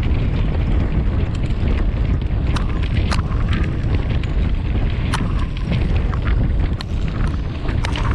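Mountain bike ridden at speed over a trail: a steady rush of wind buffeting the microphone, with irregular sharp clicks and knocks from the bike rattling over the ground.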